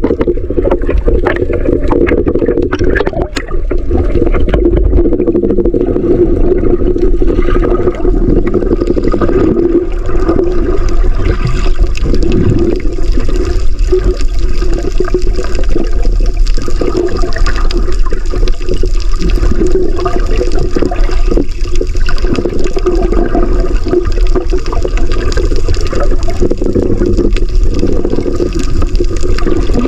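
Muffled, continuous underwater water noise picked up by a camera held below the surface as a diver swims, with a steady low hum and a few faint knocks in the first few seconds.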